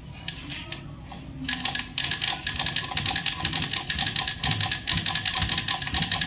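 Romy sewing machine stitching through thick cloth, its cam screws freshly set straight and forming good stitches. It gives a few single clicks, then about a second and a half in runs up to a fast, even clatter.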